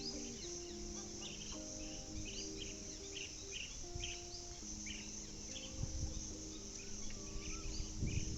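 Small birds chirping in many short, repeated calls over a steady high drone of insects, with soft background music of held, changing notes underneath.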